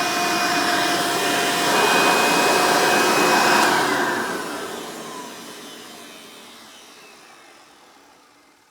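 Hoover Elite upright vacuum cleaner's direct-air motor running with a steady whine, then switched off about three and a half seconds in and winding down, its whine falling in pitch and fading as the fan coasts to a stop.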